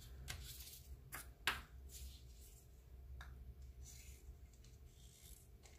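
Quiet handling noise of small paper and plastic mixing cups being picked up and tipped together: a few light taps and clicks, the sharpest about a second and a half in, over a low steady hum.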